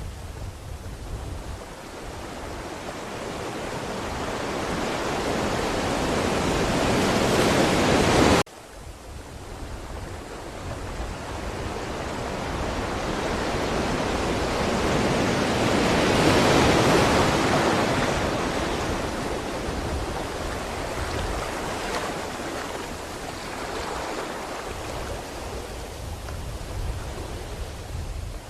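Ocean waves surging and washing on the shore. One wave builds over about eight seconds and cuts off abruptly, then another swells to a peak about halfway through and slowly recedes.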